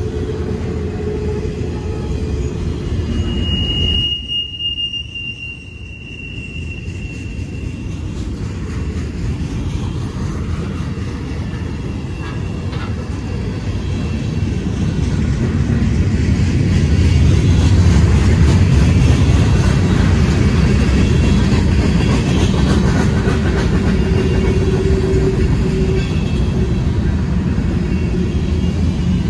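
Freight cars rolling past close by: a steady rumble of wheels on rail that grows louder in the second half, with a high-pitched wheel squeal lasting a few seconds about four seconds in.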